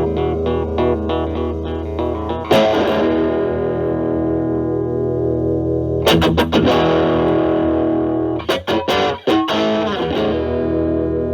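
Electric guitar, a Fender Stratocaster with single-coil pickups, played through the Metal Pedals Rawhide overdrive pedal into a Marshall Valvestate amp at a low gain setting, giving a lightly overdriven tone. Quick picked single notes, then about two and a half seconds in a loud strummed chord that rings, more hard chord strikes around six seconds, a few choppy strums near the end, and a chord left ringing.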